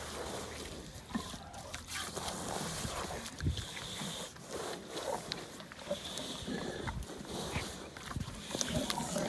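A cow being held and handled by hand, with irregular scuffs and knocks and the animal's own sounds.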